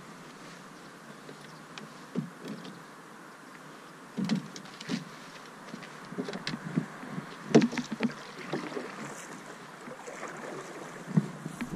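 Paddling a canoe: scattered knocks of the paddle against the hull and light splashes of the blade in the water, over a steady hiss. The knocks begin a little before halfway, and the loudest comes a little past the middle.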